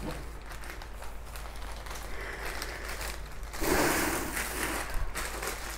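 Handling noise as laptops and packaging are moved about: faint clicks and rustling, with a louder stretch of rustling about three and a half seconds in that lasts about a second.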